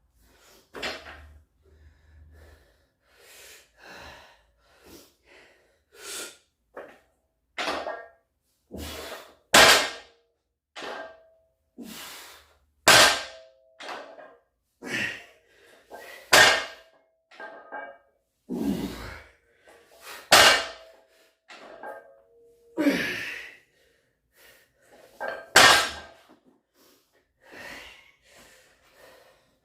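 Deadlift set with the barbell: forceful breaths and grunts about every three to four seconds, mixed with sharp clanks of metal plates, some of them ringing briefly.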